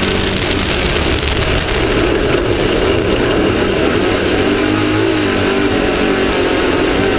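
Off-road race vehicle's engine running hard at speed, its pitch wavering up and down slightly, under a dense, steady rush of noise.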